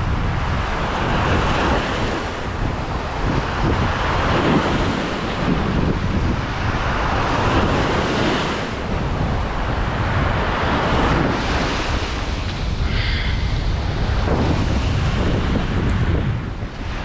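Sea waves washing onto a rocky shore, swelling every few seconds, with wind buffeting the microphone.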